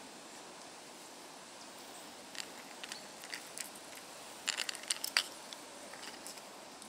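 Light clicks and clacks from jointed plastic pike lures being handled and swapped in the hands, scattered through the middle and thickest about five seconds in, over a faint steady outdoor hiss.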